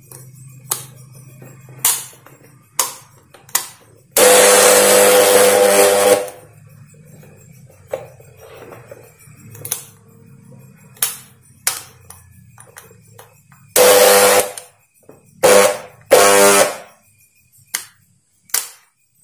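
Philips blender motor running in short, loud bursts: one lasting about two seconds starting about four seconds in, then three shorter ones near the end, each starting and stopping abruptly. The bursts come between sharp clicks from the push-buttons of its switch panel as they are pressed to test a switch repair that has not yet fully cured the fault.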